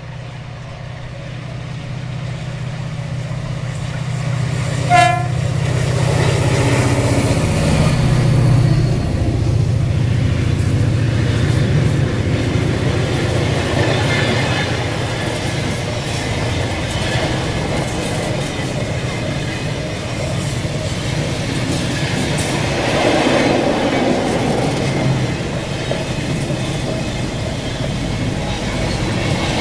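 Acciona Class 333 diesel locomotive approaching with its engine drone building, and a short horn blast about five seconds in. Then a long container freight train rolls steadily past, its wheels clacking over the rail joints.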